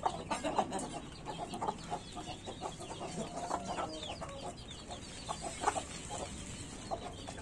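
A small flock of desi chickens, hens and a red rooster, clucking softly in short, scattered calls while feeding.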